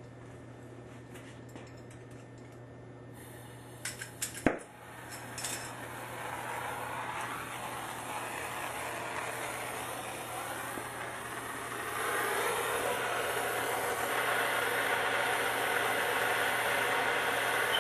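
A few clicks and a sharp snap about four seconds in, then a plumber's torch flame hissing steadily as it heats a copper pipe joint for soldering, getting louder about twelve seconds in.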